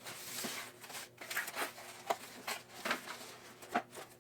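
A boxed security camera being handled: a brief rustle, then a string of light taps and knocks.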